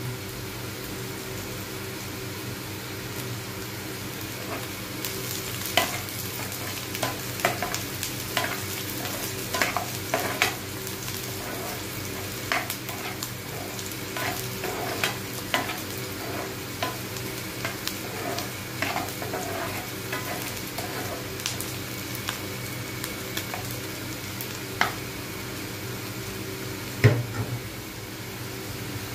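Chopped onions and green chillies sizzling in oil in a non-stick frying pan, with a metal spatula scraping and tapping against the pan as they are stirred, busiest from about five seconds in. One louder knock on the pan near the end.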